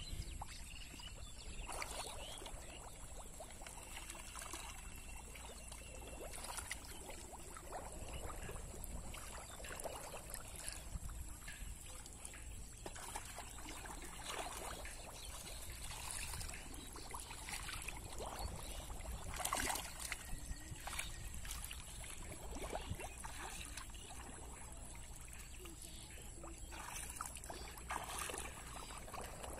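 Hands sloshing and splashing in shallow muddy water while groping in the mud for fish: irregular small splashes and trickles, with one louder splash about twenty seconds in.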